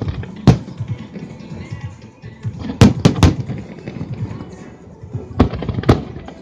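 Aerial fireworks shells bursting in sharp bangs over a steady low background: about six bangs, three of them in quick succession near the middle.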